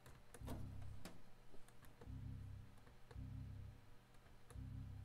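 Windows XP system sounds played again and again through a JBL Creature 2.1 speaker system, heard faintly as four short low-pitched bursts with little treble, among light mouse clicks. The speakers sound weak, as if the satellites give out almost nothing.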